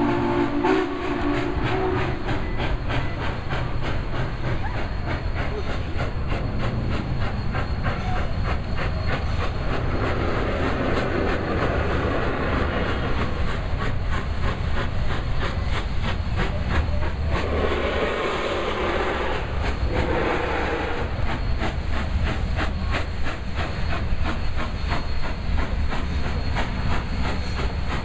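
Union Pacific 844, a 4-8-4 steam locomotive, passing with its train: a steady low rumble and rapid clicking of wheels over rail joints. A chime steam whistle blast ends about a second in, and a brief hiss comes about two-thirds of the way through.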